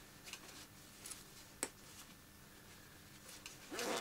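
Faint rustling of a nylon puffer jacket being handled and turned over, with one sharp click about a second and a half in and a brief louder sound near the end.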